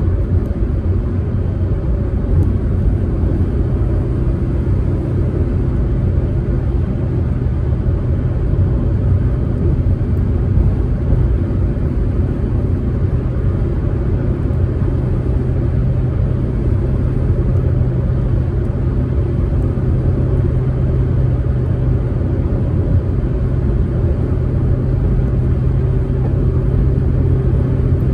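Proton Saga MC2 cruising steadily, a low engine drone over tyre and road noise. The engine note holds steady and firms up slightly about four seconds in.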